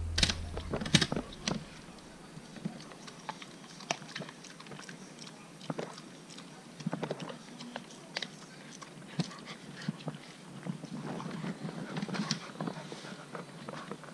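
Siberian husky puppy chewing and scrambling on a wooden chair: irregular clicks and knocks of teeth and claws on wood, the sharpest about a second in.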